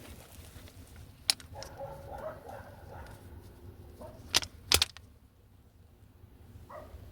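Sharp clicks from handling tools and the drive belt, one about a second in and two close together past the middle, over a low steady hum with faint animal calls in the background.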